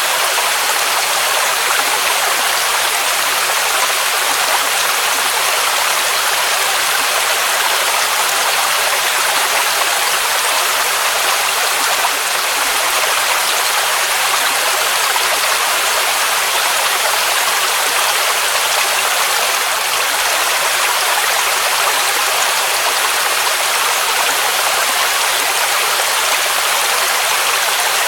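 Waterfall rushing steadily: a constant hiss of falling water with no pauses, its energy mostly in the middle and high pitches and little low rumble.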